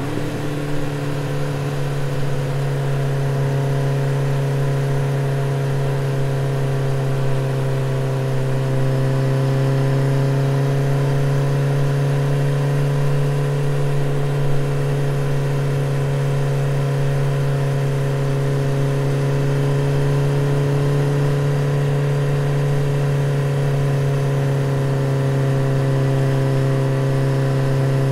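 Motorcycle engine running at a steady cruise, a constant even drone that holds nearly the same pitch throughout.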